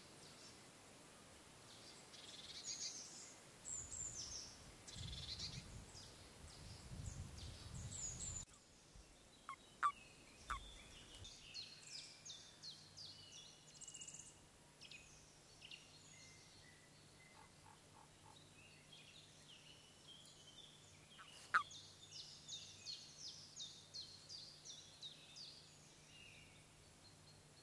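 Faint songbird calls: many short, high chirps and trills, with a low rumble under the first part that stops abruptly about eight seconds in, and a few sharp clicks.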